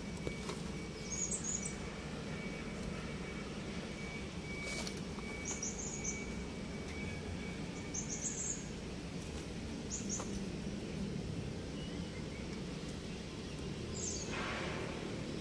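Outdoor ambience: a steady low hum of background noise, with birds giving short high chirps every few seconds, the clearest one near the end.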